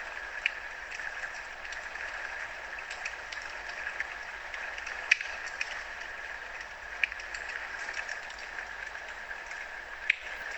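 Wood fire in a fireplace crackling: a steady hiss with scattered sharp pops, the loudest about five seconds in.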